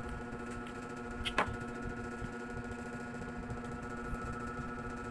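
Steady machine hum with a constant pitched tone, and a single short sharp click about a second and a half in.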